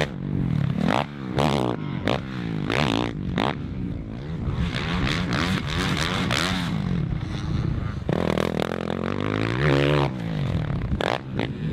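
Motocross bike engine revving hard and backing off again and again, its pitch climbing and dropping with each burst of throttle as the bike is ridden over jumps and through turns.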